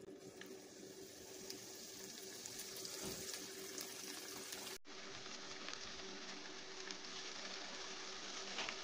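Hot olive oil sizzling and crackling as folded potato-filled corn tortilla tacos are laid into the frying pan, growing louder as more tacos go in.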